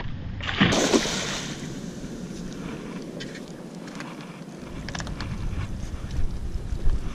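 Wind on the microphone and water splashing and lapping around a small boat, with a louder rush about a second in and a few light knocks later.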